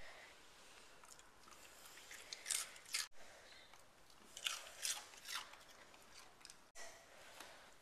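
A dog chewing something crunchy, in irregular clusters of short crisp crunches, cut off abruptly twice.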